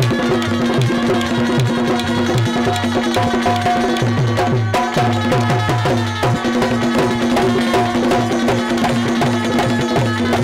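Instrumental Bundeli Rai folk music: an electronic keyboard holds a steady drone note while hand-drum beats and quick clicks of wooden clappers keep a fast rhythm.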